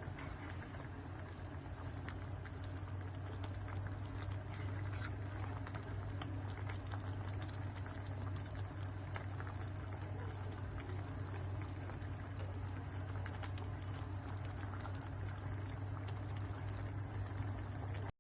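A pot of ginisang mongo (mung bean stew) bubbling as it simmers, with a steady stream of small pops and ticks over a steady low hum.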